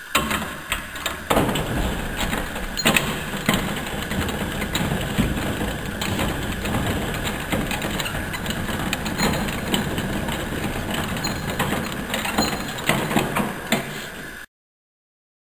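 Motor-driven bi-fold hangar door and its home-built automatic latch operating: a steady motor whine under irregular clicking and rattling of the mechanism.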